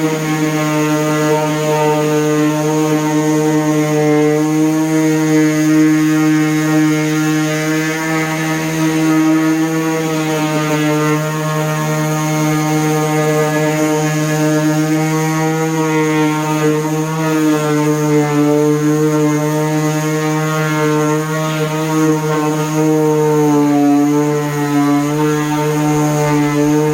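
DeWalt palm orbital sander running at a raised speed setting, sanding cedar with a 3M Xtract Cubitron II disc: a steady motor hum whose pitch wavers slightly as the sander is worked over the wood.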